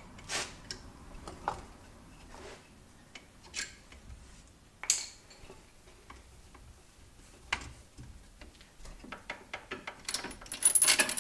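Metallic clinks and knocks from hand tools on a car's front suspension as a suspension tool is released, letting the strut come up into position for a new lower ball joint. There are scattered single clicks, then a quick run of louder ticking near the end.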